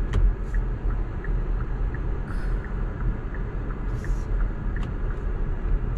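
Kia EV6's turn-signal indicator ticking steadily inside the cabin, about three clicks a second, over a low, steady cabin rumble.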